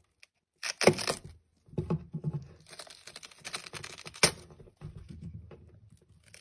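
A small watermelon torn open by hand: the rind cracks and the crisp, juicy flesh splits and crunches in a run of wet tearing sounds, starting about a second in. One sharp crack comes about four seconds in.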